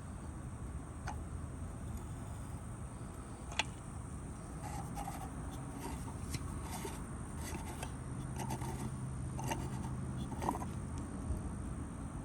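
Scattered light clicks and scrapes of hard parts being handled, over a steady outdoor background hiss with a constant high-pitched whine.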